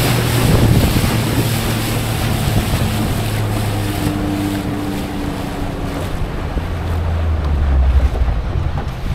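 Small wooden motorboat under way: the engine running steadily with water rushing past the hull and wind buffeting the microphone. About seven seconds in the engine note drops lower and gets louder for a moment.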